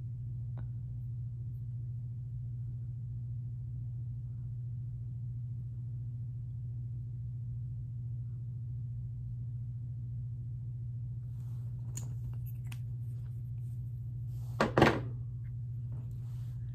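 Steady low hum, with a few faint handling clicks about twelve seconds in, then two quick sharp knocks near the end as makeup items are set down and picked up on a hard surface.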